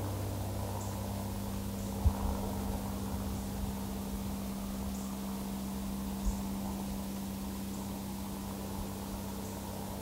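A steady low hum runs under faint woodland background, with two short low thumps, about two seconds in and again about six seconds in, and faint high ticks now and then.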